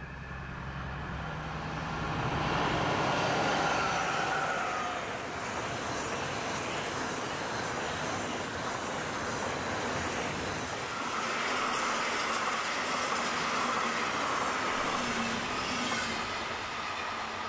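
A DB class 218 diesel-hydraulic locomotive approaches and passes, its engine loudest about three seconds in. Then a long train of car-carrier wagons rolls by with a steady rumble of wheels on rail and a thin squeal now and then.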